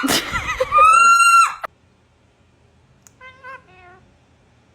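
Loud, drawn-out meow-like calls, ending about a second and a half in, followed by a few softer wavering meow-like calls about three seconds in.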